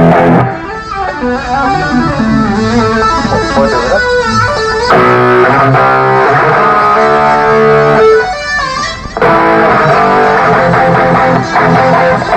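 Electric guitar playing a melodic lead line with lower notes underneath, a band's sound check.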